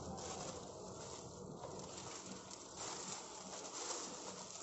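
Plastic bubble-wrap packaging crinkling and rustling as it is handled and pulled off an object.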